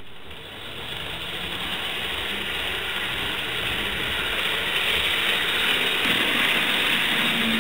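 Kato N gauge model Eurostar train running along the track: a dense mechanical whirring rattle from its motor and wheels, growing louder as it passes close by.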